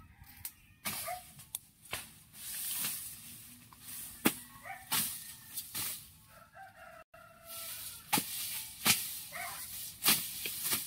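Machete swung through tall grass and plant stalks, sharp slashing cuts about once a second, with chickens calling briefly between the strokes.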